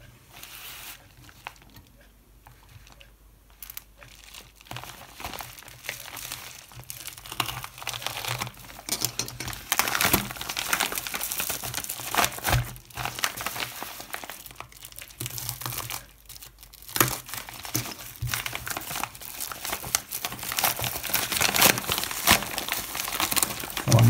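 Plastic postal mailer being opened and its contents unwrapped by hand: irregular crinkling and rustling of plastic packaging. It is faint for the first few seconds, then grows busier and louder.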